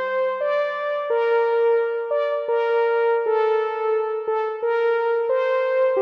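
Modal Electronics Cobalt8 virtual analog synthesizer playing a slow line of sustained notes that change about once or twice a second. A low held note fades out about a second in.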